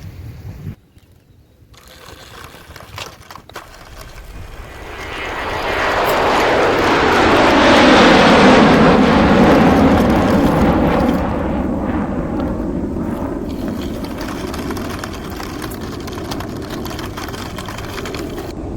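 A passing vehicle: its noise swells over a few seconds to a peak about eight seconds in, then slowly fades without dying away.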